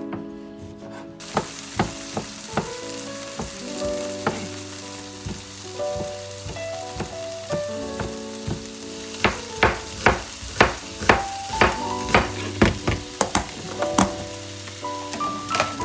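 Food sizzling in a hot frying pan, starting about a second in, while it is stirred with a spatula that clicks and scrapes against the pan, fastest and loudest in the second half. Background music plays along.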